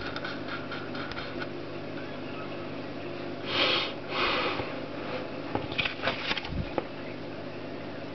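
Two short breathy rushes of noise, like a person sniffing close to the microphone, a little over three seconds in, then a quick run of small clicks, over a steady low hum.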